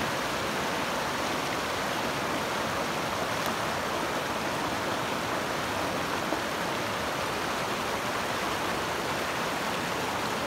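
Stream water rushing, a steady, even wash with no breaks.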